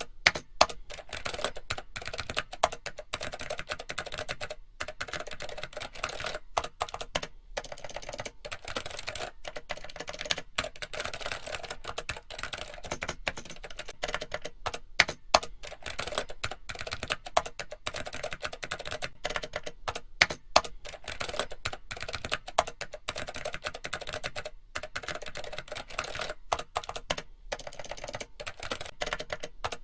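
Rapid, continuous computer keyboard typing: a steady stream of key clicks with a few louder clacks scattered through.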